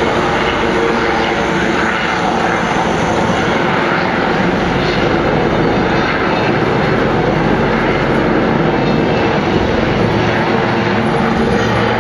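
Westland Lynx helicopter in flight, its rotors and twin turboshaft engines running with a loud, steady sound.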